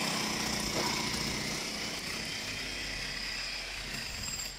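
A small motor running steadily with a high whine, cutting off near the end.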